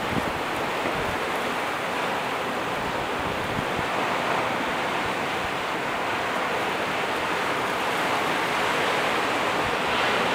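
Steady rushing noise, even and unbroken, with no distinct events.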